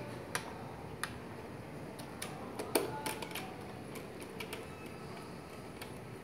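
Phillips screwdriver driving small screws into a plastic drone body to fix the landing gear: scattered, irregular light clicks and ticks of the tool and screws against the plastic.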